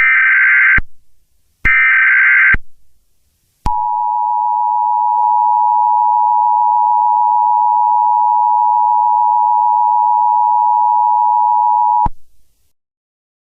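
The last two of three Emergency Alert System SAME header data bursts, each a harsh digital warble just under a second long. After a short gap comes the EAS two-tone attention signal, a steady loud tone held about eight seconds that cuts off abruptly.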